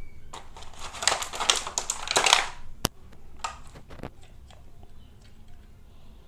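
Packaging crinkling and rustling as toy train parts are unwrapped, loudest for about two seconds, then a sharp click and a few lighter clicks and knocks of plastic pieces being handled.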